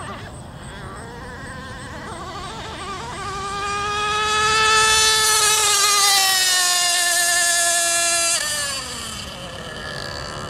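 CMB 91 two-stroke nitro engine of an Eagle rigger RC racing boat running flat out on a high-speed pass: a high, steady engine whine that grows louder, peaks about five seconds in, then drops in pitch as the boat goes by and falls away sharply after about eight seconds.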